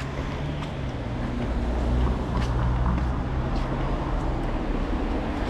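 A motor vehicle's engine running close by with a steady low hum, growing louder about a second and a half in, over street noise.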